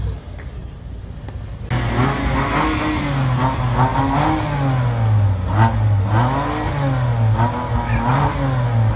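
BMW M2's turbocharged straight-six being blipped repeatedly while stationary, the revs rising and falling about every second and a half, starting about two seconds in, with a few sharp exhaust cracks as the revs drop.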